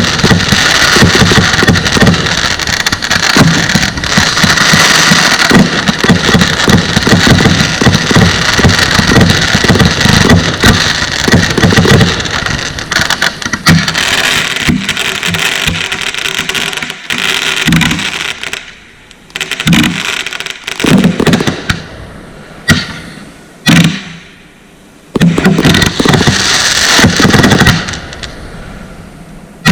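Consumer fireworks going off: a dense run of rapid bangs and crackling, then separate bangs with short gaps between them, and a last thick flurry near the end that fades out.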